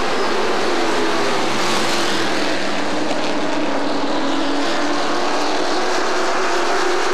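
Pro race trucks' crate V8 engines running at speed around the oval, a loud, steady drone with the engine notes shifting slightly in pitch as the trucks go by.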